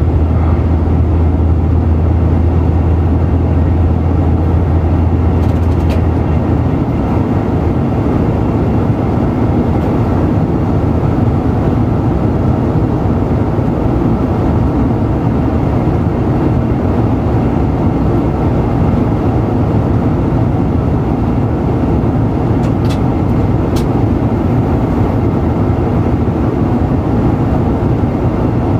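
X72500 diesel railcar under full power, heard from the driver's cab: steady engine and running noise on the rails. A strong low drone drops away about seven seconds in while the rest of the noise carries on, with a few faint clicks.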